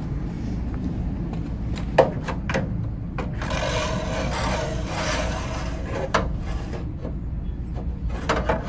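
A steel rod sliding into a VW Beetle floor pan's central tunnel, scraping and rubbing against the metal, with a few sharp knocks and one longer scrape about halfway through.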